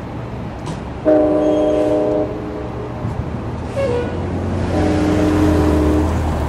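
Amtrak passenger train's air horn sounding two blasts as the train runs down the street: one blast of about a second, starting a second in, and another near the end, a warning for the street's grade crossings. A low rumble from the train grows louder under the second blast.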